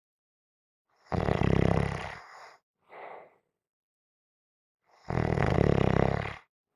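A person snoring: two long, rough snores about four seconds apart, the first trailing off into a short, softer breath.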